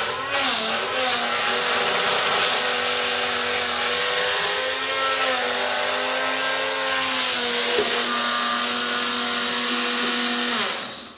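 Electric blender motor running steadily as it grinds dried eggshells into powder, its pitch wavering slightly, then cutting off suddenly near the end.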